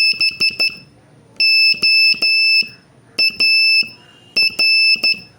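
Morse code practice tone, a single high steady beep keyed in dots and dashes spelling the word BOAR: dash-dot-dot-dot, then dash-dash-dash, then dot-dash, then dot-dash-dot, with short gaps between letters.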